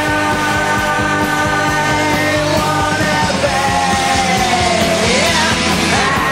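Rock music with a singing voice, loud and steady.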